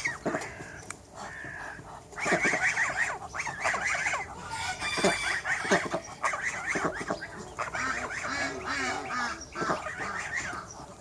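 A flock of chickens clucking and calling, many birds at once and overlapping, growing busier about two seconds in.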